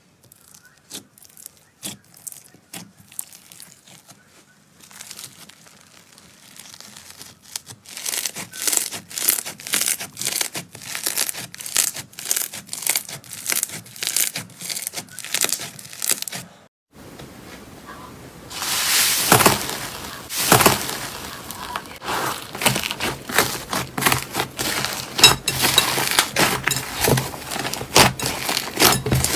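Slime being squeezed and pressed by hand, giving a dense run of small crackling pops and clicks. It breaks off briefly about halfway through and comes back louder and denser.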